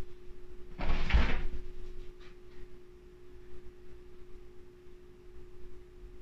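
A deep, audible exhale, one breathy rush lasting under a second about a second in, then quiet breathing. A faint steady tone sits underneath throughout.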